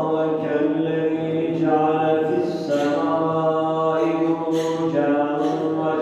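A man chanting Quranic recitation in Arabic, drawing out long, wavering notes in phrases of a second or two, with short breaks between them.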